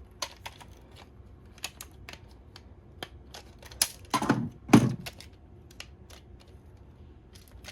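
Plastic DX Plosion Rage toy buckle being handled: scattered small clicks and snaps of its parts, with two heavier knocks about four and five seconds in.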